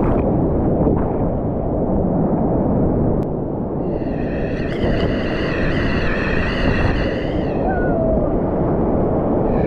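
Whitewater rapids rushing close around a kayak, with water crashing over the camera at the start. A steady high tone from an unclear source sounds over the water for about three and a half seconds midway and again near the end.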